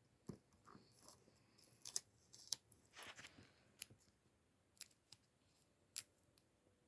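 Faint, scattered sharp clicks and soft taps, about half a dozen distinct clicks over several seconds, with near silence between them.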